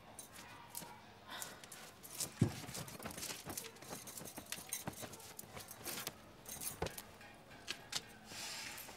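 Hands rattling and working a wooden door's lock and handle: a run of small metallic clicks and scrapes, with a heavier knock against the door about two and a half seconds in and another near seven seconds.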